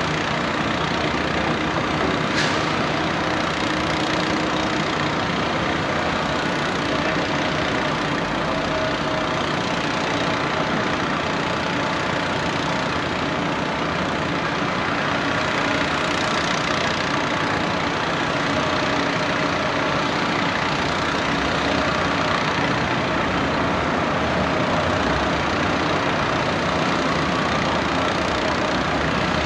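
Heavy diesel engine of an excavator drilling rig running steadily, with one brief sharp tick about two and a half seconds in.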